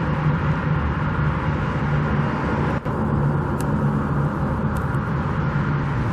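Steady road traffic noise from passing cars, with a brief dropout in the sound about three seconds in.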